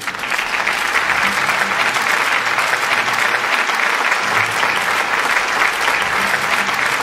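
Crowd applauding steadily, building up over the first second.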